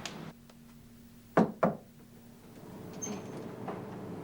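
Two sharp knocks on wood, about a quarter of a second apart.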